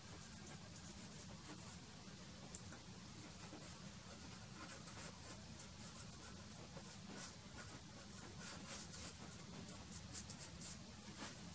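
Soft pastel stick scraping and dabbing on black pastel paper in short, faint scratchy strokes, coming in quicker clusters from about halfway through. A steady low hum lies underneath.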